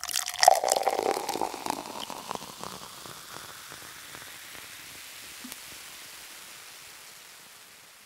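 Outro sound effect under the logo card: a burst of splashy crackles and clicks, loudest about half a second in, that trails off into a long hiss fading away.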